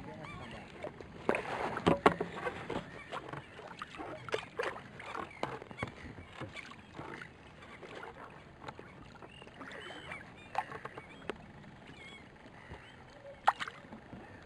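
Kayak paddle strokes dipping and splashing in calm water, with drips and small knocks, in an uneven rhythm. The splashes are loudest about two seconds in, and a single sharp click comes near the end.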